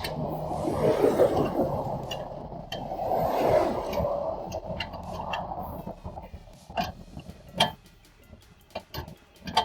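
Freeway traffic rushing past in repeated swells, then dropping away; in the last few seconds a scatter of sharp clicks and knocks from the tire change.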